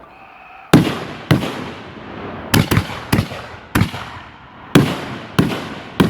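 Backyard fireworks going off: a string of about ten sharp bangs at irregular intervals, starting under a second in, each trailing off in echo.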